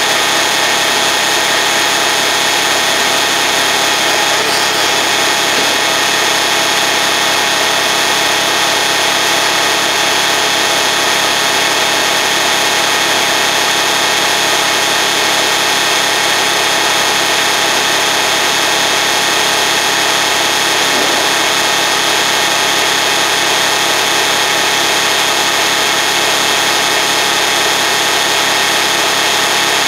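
Kubota RTV X1100C utility vehicle's three-cylinder diesel engine idling steadily after a cold start, heard close to the exhaust.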